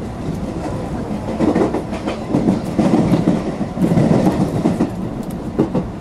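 Train wheels clattering over rail joints and points in irregular loud bursts over a steady running rumble, heard from inside the front car of a JR Kobe Line rapid train.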